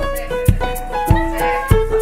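Background music: a melody of short stepping notes over a steady beat, a little under two beats a second.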